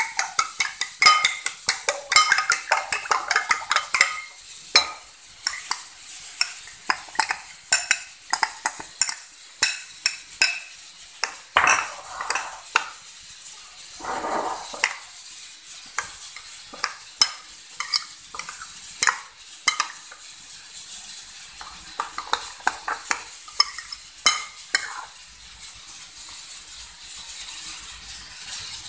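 A metal spoon beating raw eggs in a bowl: fast clinks of the spoon against the bowl's side for the first few seconds, then slower, spaced clinks and wet stirring as chopped onion, green chilli and coriander are mixed into the eggs, tapering off near the end.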